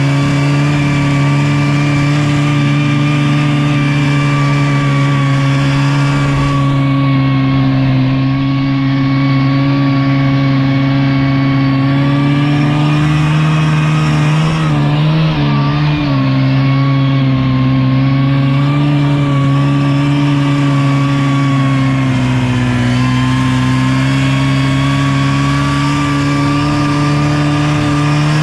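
Buran snowmobile's two-stroke engine running steadily under load while the machine rides through deep snow, heard from the rider's seat. Its pitch holds nearly level, wavering briefly about halfway through.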